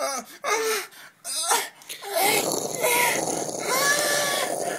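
Short bursts of a person's non-speech vocal sounds, cries or groans, in the first two seconds. From about two seconds in, a steady hissing noise takes over, with a wavering voice-like tone over it.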